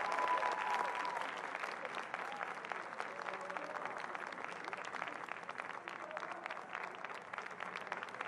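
Concert audience applauding steadily, with faint voices calling out in the crowd. A held note from the music ends about a second in.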